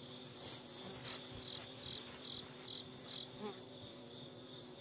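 Faint outdoor insect chorus: a steady high-pitched trill, with a run of about six short high chirps, a little over two a second, in the middle.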